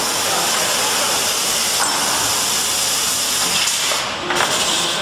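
Two-axis CNC corner-cleaning machine working the weld seams of a white PVC window frame: a steady hiss from its cleaning tools and air. The hiss dips briefly about four seconds in.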